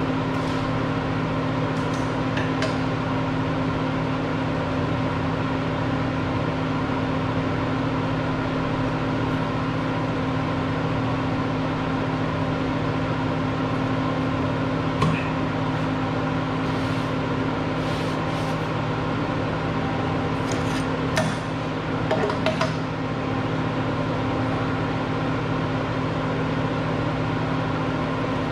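A steady machine hum with several fixed tones, from a motor running. A few light metallic clinks come about halfway through, and a short cluster of knocks comes near three quarters in.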